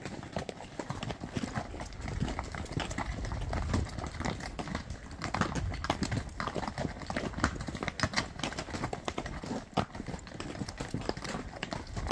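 Horses' hooves clip-clopping at a walk on a rocky dirt trail: a steady, uneven run of sharp clacks as hooves strike stones and ground.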